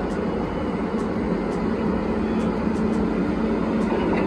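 Steady locomotive cab noise: a low rumble under a constant hum, with faint ticks about every half second.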